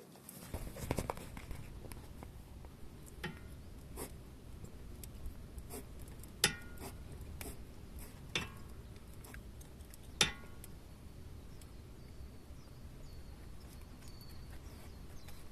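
Scattered sharp metallic clicks and knocks from a car's stabilizer (sway bar) link being checked for the source of a suspension noise, a few seconds apart; the two loudest come about six and ten seconds in, each with a brief ring.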